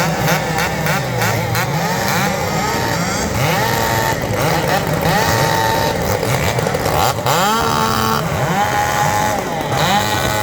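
Several two-stroke racing chainsaws revving up and down over each other, their pitches rising and falling again and again.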